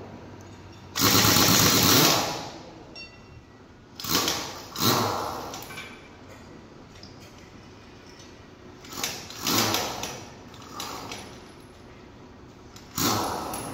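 Pneumatic impact wrench working the nuts of a bus's front wheel for a tyre change, in about six short bursts of rapid hammering, the longest one about a second in.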